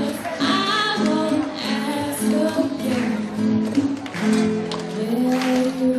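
Live acoustic song: an acoustic guitar strummed and plucked with a hand drum, and a girl singing into a microphone over it.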